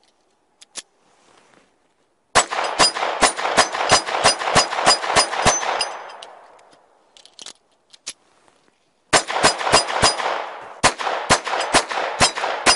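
Ruger LCP II .22 LR pistol firing two rapid strings of shots, the first starting about two seconds in and the second about nine seconds in, at roughly three to four shots a second, each crack followed by echo. A few faint clicks come before the first string.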